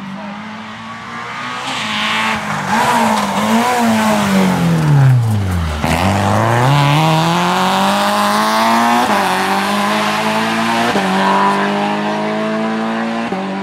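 Renault Clio rally car braking into a hairpin, its engine falling steadily in pitch to a low point just before the middle. It then accelerates hard out of the bend, revs climbing, with three upshifts in the second half.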